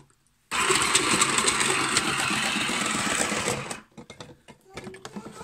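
Andrew James electric mandoline slicer's motor running as a potato is pushed through its thick-slice blade. It starts suddenly about half a second in, runs steadily and stops after about three seconds.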